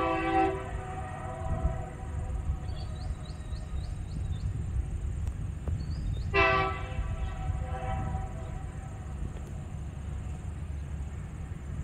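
Diesel locomotive's multi-tone air horn sounding two blasts as the train approaches a level crossing: one right at the start and a second about six and a half seconds in, each fading away after. A steady low rumble runs underneath.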